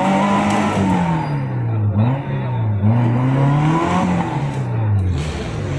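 Modified Maruti Gypsy's engine revving hard in repeated surges, the pitch sagging and then climbing again each second or so, as its rear wheels spin in the mud on a climb.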